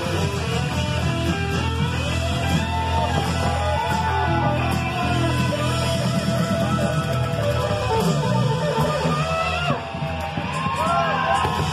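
Live rock band playing: electric guitars over a drum kit, with a lead line whose pitch slides and bends.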